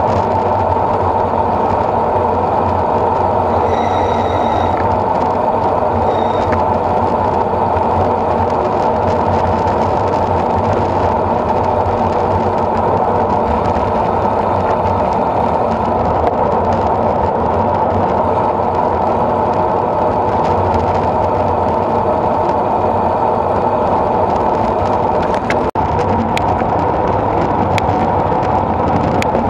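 Steady rushing of wind and road noise on a camera riding along with a road bike at speed, even in level throughout, with a few faint clicks near the end.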